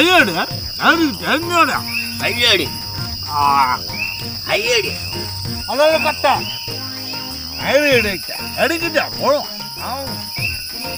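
Crickets chirping in a steady high trill. Over them come many short pitched sounds that each rise and then fall in pitch, scattered irregularly; these are louder than the crickets.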